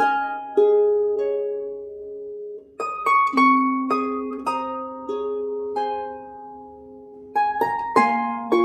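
Background music: a slow plucked-string melody, groups of notes and chords struck together and left to ring out and fade.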